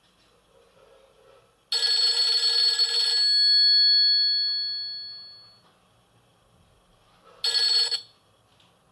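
Nokia E50 ringtone playing from the phone's loudspeaker: a loud burst of many tones at once about two seconds in, a few of its tones lingering and fading over the next two seconds, then a shorter burst near the end.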